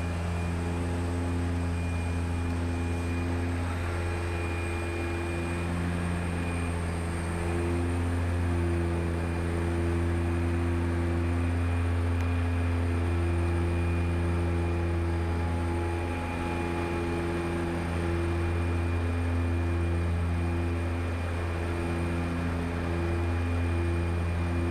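Cockpit noise of a DHC-6-300 Twin Otter on approach: its two PT6A turboprop engines and propellers drone steadily, a strong low hum with a slow wavering beat and a faint high turbine whine. The drone swells slightly for several seconds about a third of the way in.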